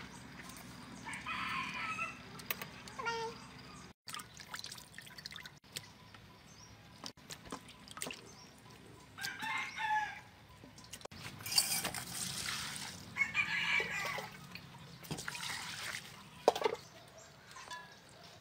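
Roosters crowing several times, with chickens clucking, and a short rush of pouring liquid about twelve seconds in.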